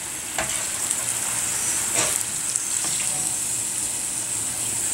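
Battered cauliflower florets deep-frying in hot oil in a kadai: a steady sizzle as the batch turns golden and crisp. A metal slotted skimmer knocks lightly against the pan about half a second in and again about two seconds in.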